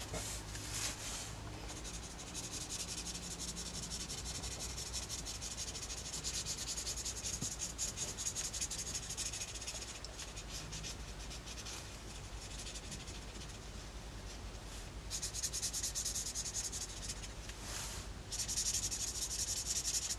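Watercolour marker tip scratching across sketchbook paper as lines are drawn, in runs of strokes with a quieter stretch a little past the middle.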